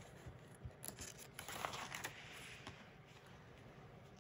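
Cookbook pages being turned by hand: faint paper rustling with a few light taps, mostly in the first half.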